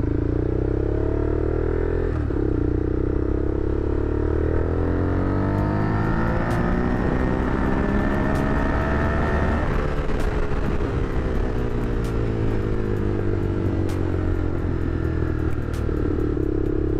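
Honda Superhawk 996's 90-degree V-twin accelerating hard on the road. There is a gear change about two seconds in, then the revs climb steadily for about eight seconds before falling back as the throttle closes. The rider finds the top end flat and sputtering from about 7,000 rpm up, which he suspects could be fuel, ignition or cam timing.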